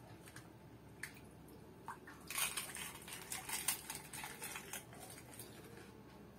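Crisp puchka (pani puri) shell crunching as it is bitten and chewed: a dense crackle lasting a couple of seconds, after a few small clicks as it is dipped in a steel bowl of tamarind water.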